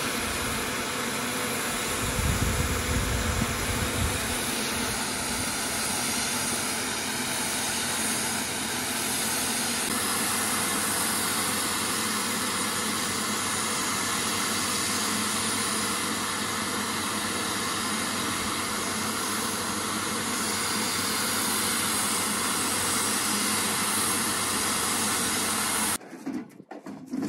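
Bosch electric paint sprayer running steadily, its air turbine blowing with a hiss of spray, with a brief louder low rumble about two seconds in; the sound cuts off near the end.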